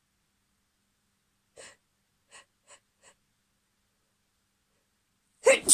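A person's sneeze: four short, faint intakes of breath in quick succession, then a loud sneeze starting near the end.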